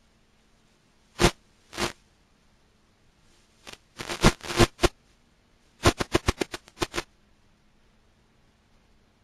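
Short bursts of harsh crackling static from an analog FPV video link breaking up, over a faint steady hum. There are two single crackles, then a tight cluster about four seconds in and a rapid run of about eight near the end.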